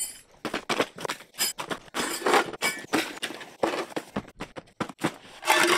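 Camping gear being unpacked by hand: irregular rustling and crinkling of nylon dry bags and stuff sacks, with items set down on the ground and a couple of light metal clinks.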